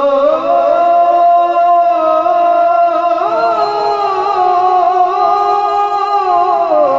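Man singing a long, drawn-out melismatic line of an Urdu devotional poem into a microphone, amplified through a PA. The held note wavers and bends upward about three seconds in, then falls near the end.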